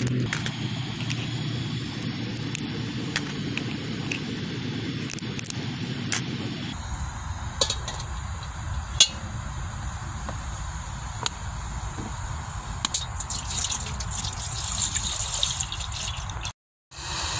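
Water poured into an empty metal cooking pot, splashing and running for a few seconds near the end, cut off suddenly. Before that, scattered light clicks and knocks over a steady outdoor background.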